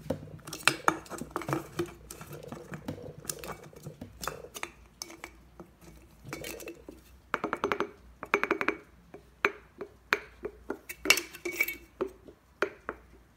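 Thin aluminium drink cans being handled and pressed together, giving light metallic clicks, taps and crinkling scrapes. There are two quick runs of rattling clicks, one about halfway through and one near the end.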